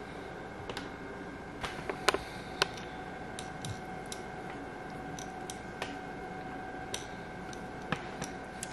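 Irregular light clicks and taps of a silicone pastry brush and crinkling foil as sauce is brushed over meat on a foil-lined baking tray, loudest in a short cluster about two seconds in, over a steady faint hum.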